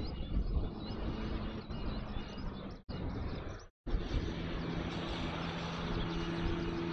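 Outdoor airport ambience: a steady rumble with a low hum that grows clearer in the second half, and small birds chirping. The sound cuts out twice briefly, about three and four seconds in.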